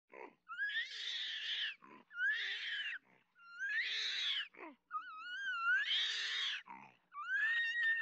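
Orangutan calling: about five high, breathy calls of about a second each, each rising in pitch and then bending, with short low grunting sounds between them.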